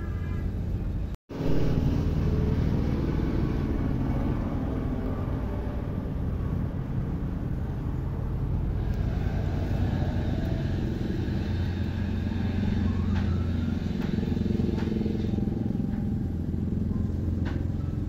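Yamaha Aerox scooter running at speed, with a steady drone from the engine and CVT transmission that cuts out briefly about a second in. The owner suspects a worn primary drive gear bearing.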